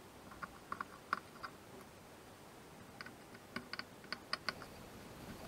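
Faint small sharp clicks from a screwdriver undoing the screws on the bottom cover of a Dell G3 gaming laptop, in two short groups: a handful about half a second to a second and a half in, and another handful from about three seconds in.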